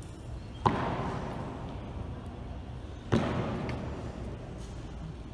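Two single boot stamps from a ceremonial honor guard's slow march, hard soles striking a stone floor about two and a half seconds apart. Each stamp rings out with a long echo in a large hall.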